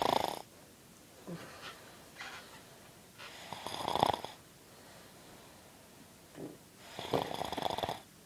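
Snoring: three long snores, at the start, about four seconds in and near the end, with softer breaths between them.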